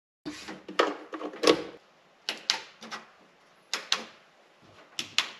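Sharp clicks and knocks of LED light bars being handled and switched on at a workbench: a cluster in the first second and a half, then three double clicks about a second and a half apart.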